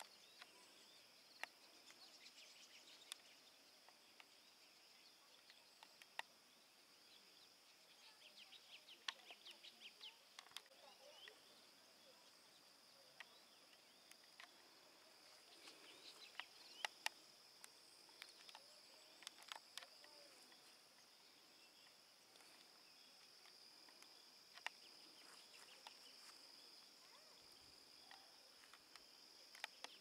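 Faint, steady, high-pitched insect chorus, crickets or cicadas, with scattered sharp clicks and a few short runs of rapid ticking.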